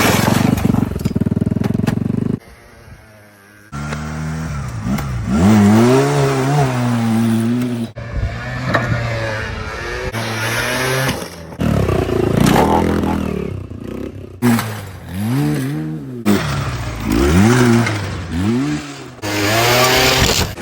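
Motorcycle engines revving up and down, their pitch climbing and dropping again and again, over a series of short clips that cut abruptly from one to the next. There is a brief quieter stretch about three seconds in.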